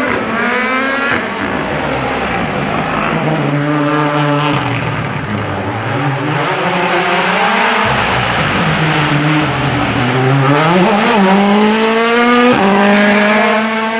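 Rally cars going flat out on a stage: engines revving hard, the note climbing and then dropping at each gear change, over a steady hiss of tyre and road noise.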